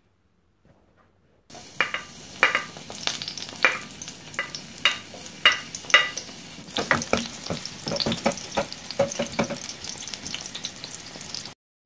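Coconut pieces sizzling in hot coconut oil in a stainless-steel pan as they are added and stirred with a wooden spatula, a steady hiss with many sharp crackles and pops. It starts about a second and a half in.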